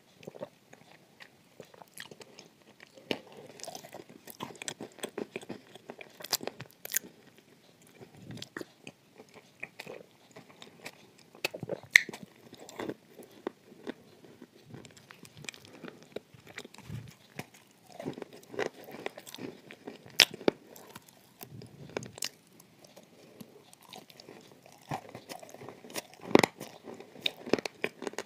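Biting into and chewing a dry, grey chunk of clay: repeated sharp crunches and crackles between quieter chewing, with louder bites about 6, 12 and 20 seconds in and again near the end.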